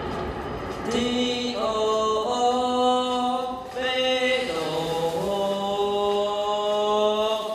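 Slow chant-like singing in long held notes, sometimes two notes at once, each held for a second or two before stepping to a new pitch. It starts about a second in, after a brief noisy hiss.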